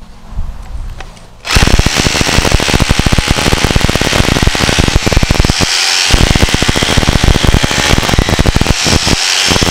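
Bosch Bulldog rotary hammer drilling into a concrete slab. It starts about a second and a half in, then hammers rapidly and continuously, easing off briefly twice.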